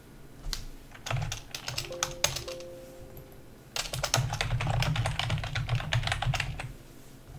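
Typing on a computer keyboard: a few scattered keystrokes, then a quick, steady run of keystrokes about four seconds in that lasts about three seconds.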